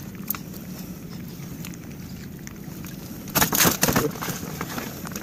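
Woven plastic sack rustling and crinkling as hands work a caught fish from a gill net into it, with a loud scuffle lasting about a second a little past halfway, over a low steady background of open-air wind and water.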